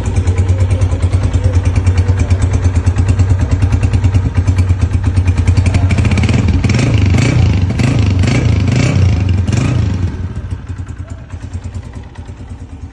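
Honda CG 125's single-cylinder four-stroke engine running with a quick, even exhaust beat. It is blipped several times about halfway through, then drops back to a quieter idle near the end.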